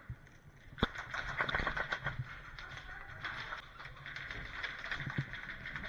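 Airsoft guns firing in an indoor arena: a sharp crack about a second in, then a quick rattle of rapid shots and BB hits, with scattered clicks after it.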